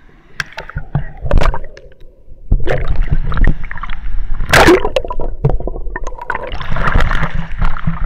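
Water sloshing and splashing against an action camera in a waterproof case as it dips in and out of a pool's surface, with knocks against the housing. It is loudest from about a third of the way in, with one big splash just past halfway.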